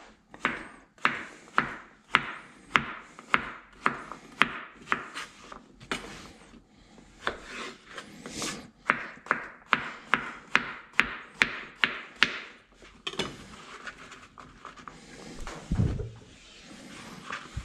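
Chef's knife chopping yellow squash into cubes on a plastic cutting board, the blade knocking on the board about twice a second. The chopping stops about two-thirds of the way through, followed by softer handling sounds and a dull thump near the end.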